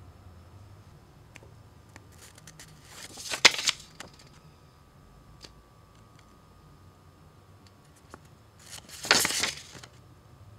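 Handling noise: two short rustles about five and a half seconds apart, with a few faint clicks in between.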